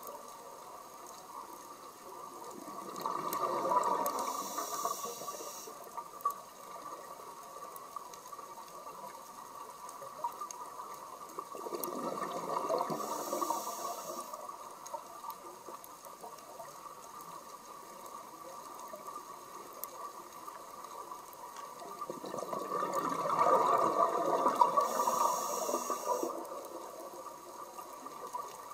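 Scuba diver's exhaled bubbles heard through an underwater camera, in three bubbling surges about eight to ten seconds apart, each lasting a few seconds. A steady faint hum runs underneath.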